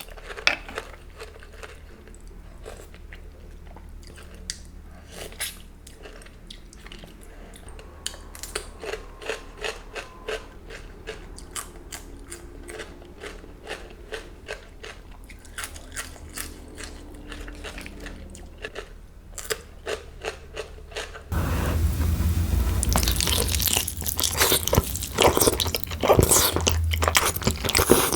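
Close-miked eating: crunchy bites and chewing, with a string of sharp crunches. About 21 seconds in, the sound jumps abruptly to louder, denser crunching and chewing.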